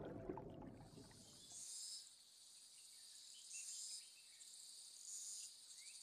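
Background music fading out, then faint, high-pitched insect calls: a steady thin trill with three louder bursts spaced about a second and a half apart.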